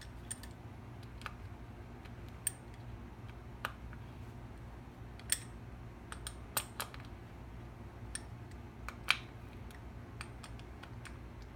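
Small metal hardware of a guitar pedal being handled and fitted by hand: about a dozen irregular light clicks and taps, over a low steady hum.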